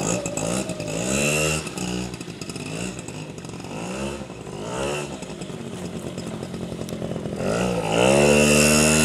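Small minibike engine revving up and easing off several times as it is ridden, then climbing to higher revs and held there near the end.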